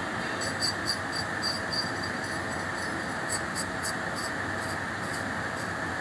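Light, irregular metallic clicks and clinks as the steam pressure reducing valve's spring, plate and bowl cover are fitted and handled. They fall over the first four seconds or so, with a few more about a second later, over a steady background rushing noise.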